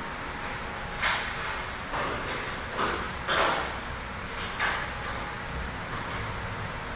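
Metal garage-door hardware being handled: about half a dozen short clanks and rattles over a few seconds, the loudest about three seconds in, over a steady background hiss.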